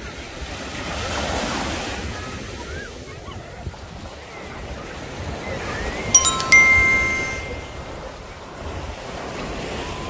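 Small waves breaking and washing up the shore, with wind buffeting the microphone. About six seconds in, a subscribe-button sound effect plays: two quick sharp onsets, then a bell-like chime ringing for about a second.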